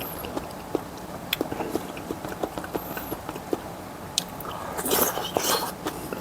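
Close-miked chewing: a run of short, wet mouth clicks and smacks as a mouthful of food is eaten, with a louder, hissier stretch of eating noise about five seconds in.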